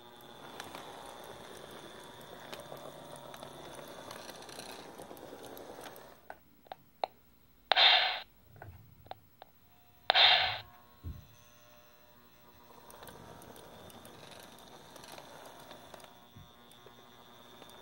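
Freshly serviced Lionel Pullmor open-frame motor running with a quiet, steady hum, its brushes and armature cleaned and its shaft oiled. The hum stops about six seconds in. A few clicks and two short loud bursts follow, about eight and ten seconds in, before the hum starts again near the end.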